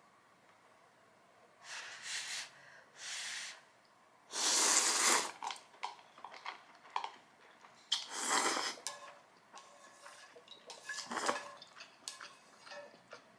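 Noodles being slurped in five noisy bursts, the longest and loudest about four to five seconds in, with small clicks of utensils against a bowl in between.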